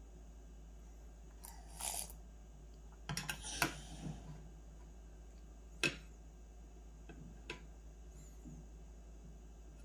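A small spoon scraping and clinking against a steel-lined bowl of cereal and milk. There is a scrape about two seconds in, a cluster of clinks around three to four seconds, a single sharp clink near six seconds, and a couple of lighter taps after that.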